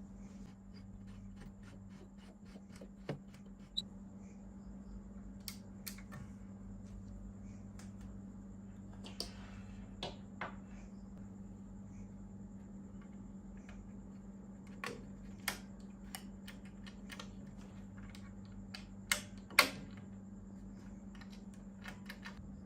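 Scattered light clicks and taps of small parts and hand tools being handled during work on a vintage radio, over a steady low hum; two sharper clicks come close together near the end.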